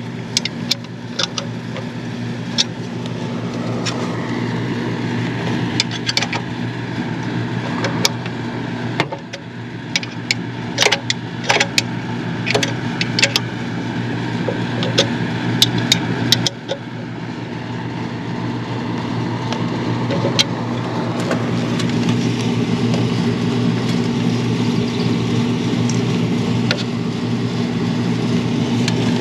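A steady low machine hum, like a motor or engine running, under scattered sharp clicks and taps of a hand tool working on an LED floodlight's metal mounting bracket. The clicks come thickest in the first half, and the hum grows a little louder in the second half.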